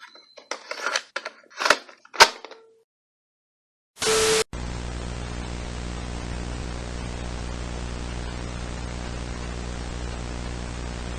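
A few sharp crackles and pops, the loudest about two seconds in, then a half-second blast of loud static. After that comes steady TV-style static hiss over a low electrical hum.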